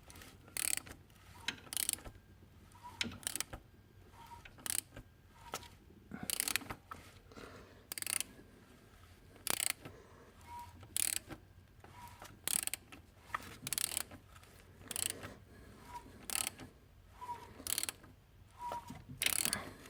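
BMW 320d four-cylinder diesel running at about 1000 rpm, with an irregular clacking from the timing-chain housing, one or two sharp knocks a second. The owner takes it for the timing chain rattling because the chain tensioner no longer holds oil pressure.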